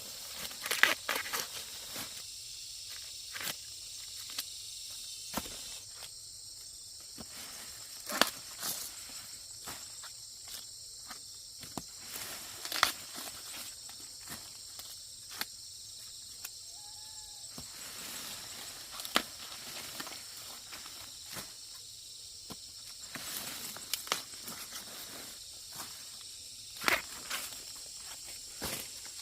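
Steady high-pitched insect chirring with irregular sharp snaps and rustles, several much louder than the drone.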